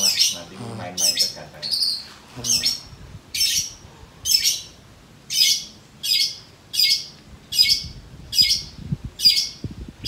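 Long-tailed shrike (cendet) calling from its cage: a string of short, high calls repeated evenly, about one every three quarters of a second, more than a dozen in all.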